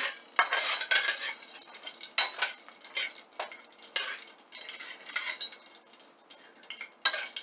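Spatula scraping and stirring around a frying pan in irregular strokes, with whole cumin seeds and bay leaf sizzling in hot oil: the tempering (phoron) stage of the dish.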